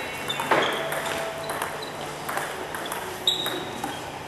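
Table tennis rally: the celluloid-type ball clicking off paddles and bouncing on the table, a few sharp pings spaced about a second apart, one loud hit about half a second in.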